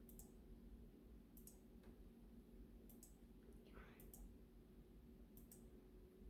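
Near silence broken by faint computer mouse clicks, roughly one a second and several in quick pairs, over a faint steady hum.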